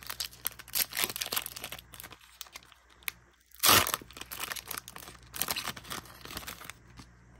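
Foil Pokémon booster pack wrapper crinkling in the hands, then ripped open with one loud tear a little over halfway through, followed by more crinkling as the cards are slid out.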